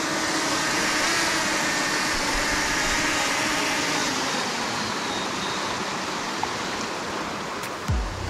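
DJI Mini 2 drone's propellers buzzing steadily as it hovers close by, over the rush of a small waterfall and stream. Near the end come a few clicks and low thumps.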